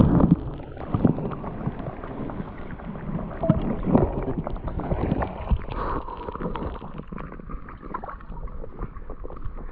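Muffled water sloshing and gurgling with scattered small knocks, heard through a camera held underwater in a muddy river.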